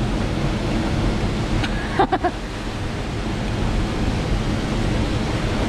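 Steady rush of a small waterfall pouring into a rock pool, with a short louder sound about two seconds in.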